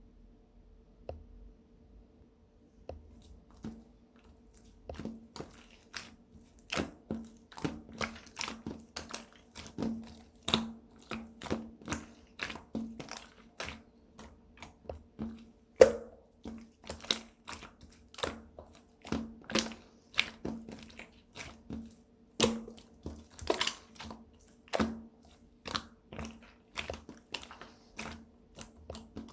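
Slime being pressed and squished by hand, giving a quick series of sharp clicking pops, about two to three a second, that set in a few seconds in.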